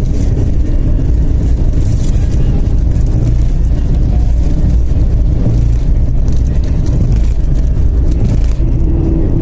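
Turbo-diesel car driving at highway speed: a steady low drone of engine and road noise, with gusts of wind hiss coming and going.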